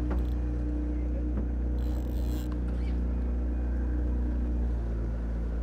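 Yamaha outboard motors running steadily at low trolling speed, a constant low drone.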